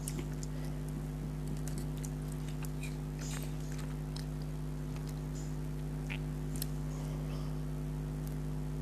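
Close-up eating sounds: a person chewing food, with scattered small wet clicks and smacks, over a steady low electrical hum.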